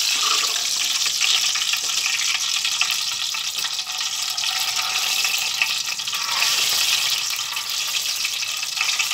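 Batter-coated green chillies deep-frying in hot oil, which sizzles steadily with fine crackling.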